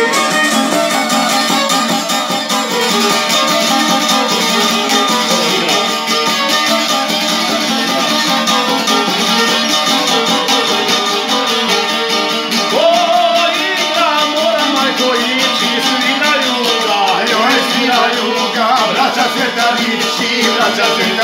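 Violin and a long-necked plucked lute playing a lively folk tune together, the lute strummed steadily under the violin melody, with a man singing along.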